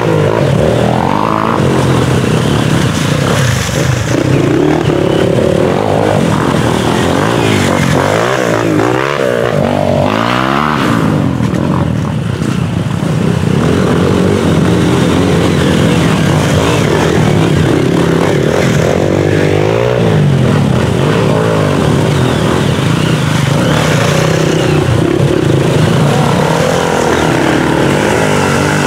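Several off-road dirt bike engines revving as the bikes ride one after another through deep mud, their pitch rising and falling over and over as the riders work the throttle.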